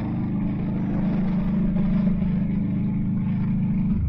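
Kawasaki Vulcan motorcycle engine running steadily while riding along a road, heard from on the bike; its note drops to a lower pitch near the end.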